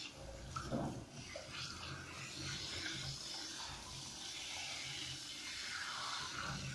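Water running from a handheld shower head, spraying steadily over a wet cat's fur in a bathtub.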